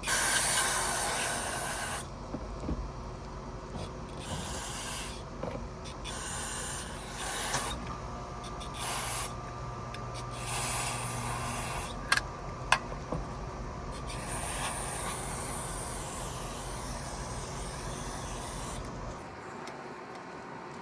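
Aerosol cleaner hissing from a spray can in repeated bursts as a throttle body is rinsed out. The longest and loudest burst comes at the start, with rubbing between bursts and two sharp clicks about twelve seconds in.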